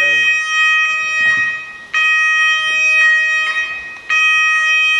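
An electronic alarm sounder gives a loud, steady, buzzer-like tone in three blasts of about two seconds each, with short breaks between them.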